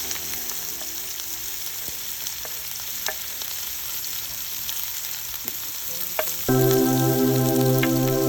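Onion and peppers sizzling as they fry in hot oil, with a few light clicks. About six and a half seconds in, music comes in suddenly, louder than the frying.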